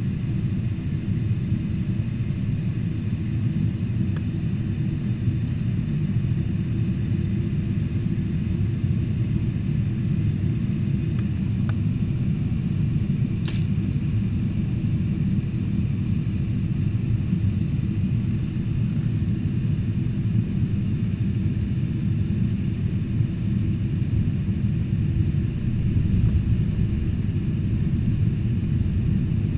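Steady low rumble of a Boeing 747-400's cabin in flight, engine and airflow noise, with a faint click about halfway through.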